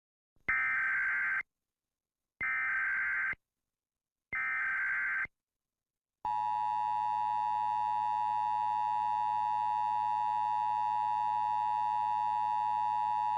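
Emergency Alert System header: three bursts of digital SAME data tones, each about a second long and a second apart. About a second later the steady EAS attention tone starts and holds, announcing an Amber Alert.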